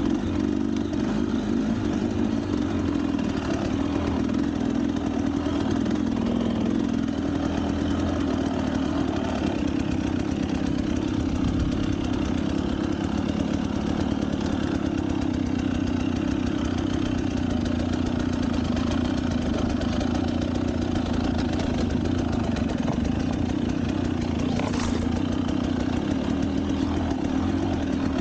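A vehicle engine running steadily at a low, even speed, near idle, with no revving.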